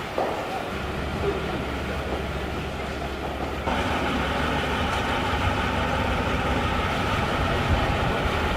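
Steady rumbling background noise that jumps up in level abruptly a little under four seconds in.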